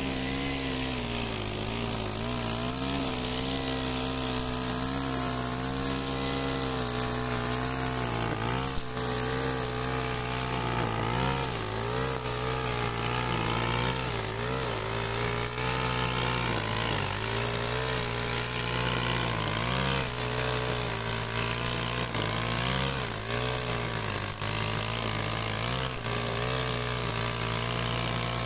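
Stihl FS130 brush cutter's 4-MIX engine running at high revs while its 2.7 mm twisted-square nylon line cuts thick grass growing over old hay. The engine note wavers up and down every second or two as the line meets the load.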